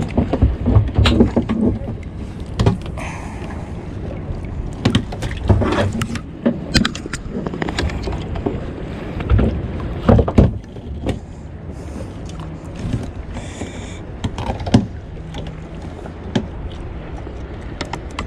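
Water and wind noise around a kayak, with irregular knocks and bumps against the hull at uneven intervals.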